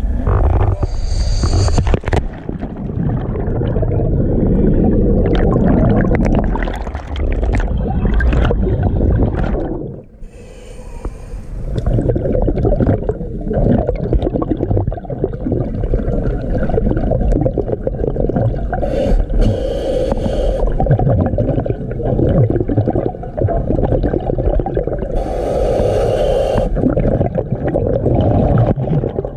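Scuba diver breathing through a regulator underwater: long bubbling exhalations with a short hiss of inhaled air every six to nine seconds.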